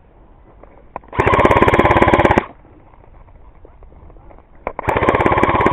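ICS L86 airsoft electric gun firing on full auto, close by: two rapid bursts of a little over a second each, one about a second in and one near the end.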